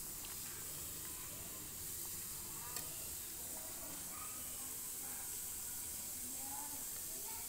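Meat pieces sizzling as they fry in a steel kadai: a steady high hiss, with a single click about three seconds in.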